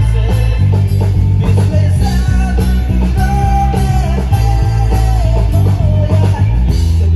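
Live rock band playing at a sound check: loud bass and drums with guitar, and a held, bending melody line over them.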